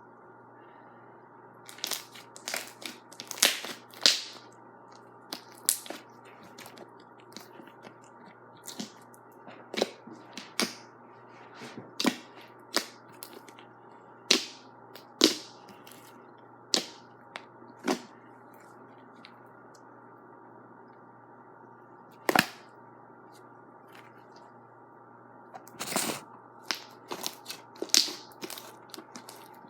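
Slime being squeezed and worked by hand, popping and crackling in sharp, irregular clicks that come in clusters.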